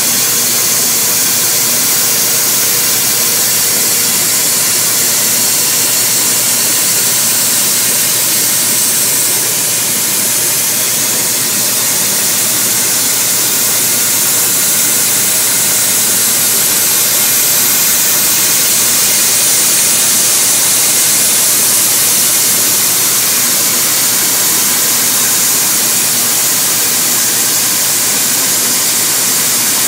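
Komo CNC router running, its spindle routing a moulded profile along the edge of a curved wooden headboard piece. It gives a steady, loud hiss throughout, strongest in the high range.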